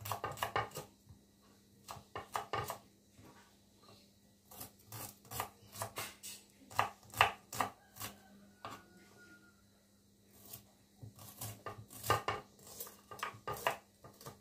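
Kitchen knife slicing shallots on a wooden cutting board: quick runs of sharp taps on the board, in several bursts with short pauses between them.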